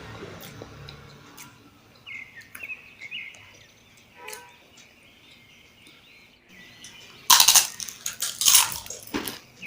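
Birds chirping in the background, short high chirps. From about seven seconds in, loud close-up crackling and smacking eating sounds of a mouthful of rice and mutton curry being handled and chewed.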